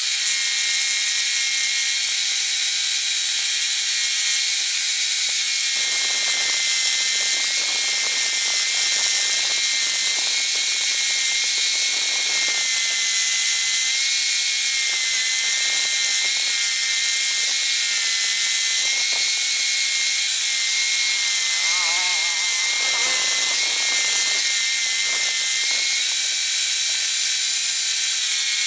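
A homemade scroll saw running steadily with a high whirring clatter as its blade cuts through small wooden blocks.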